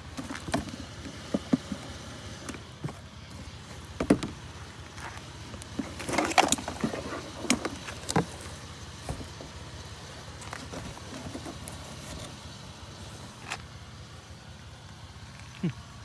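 Scattered knocks and clatter of curbside junk being handled, busiest a few seconds in, over the steady low hum of an idling vehicle engine.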